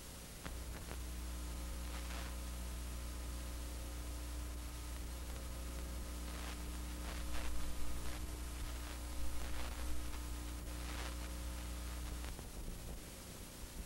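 Steady electrical hum with several higher steady tones over a background hiss, with scattered short crackles. The hum sets in about half a second in and cuts off about a second and a half before the end.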